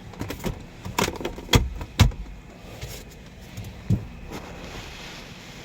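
A string of sharp clicks and knocks, the loudest two about one and a half and two seconds in and one more near four seconds.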